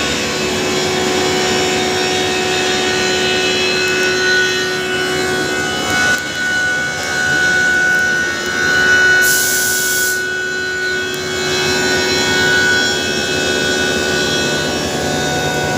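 CNC vertical machining center cutting metal: a steady spindle whine over the noise of the cutter. A one-second burst of high hiss comes about nine seconds in.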